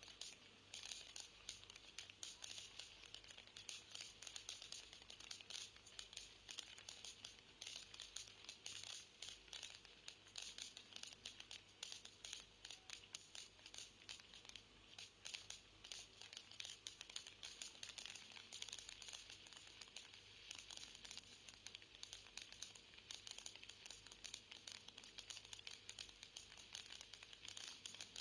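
Faint, thin-sounding crackle of fireworks: a dense, unbroken run of small pops and crackles from many bursting shells.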